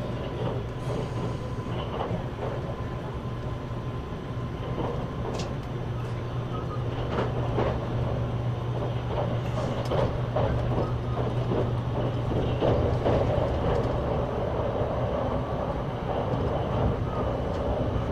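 Electric limited express train running, heard inside the carriage: a steady low hum under an even rumble of wheels on rail, with scattered clicks. It grows a little louder in the second half.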